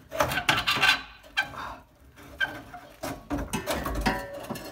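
Rusty exhaust pipe being worked by hand into its hanger hook under a Jeep: a few short squeaks and scrapes of metal and rubber, with low bumps near the end.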